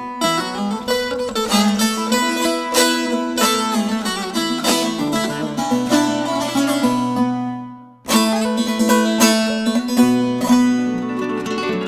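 Instrumental music on a plucked string instrument: quick picked notes over a sustained low drone, fading out briefly about eight seconds in and starting again. This is the instrumental introduction to a Turkish folk song.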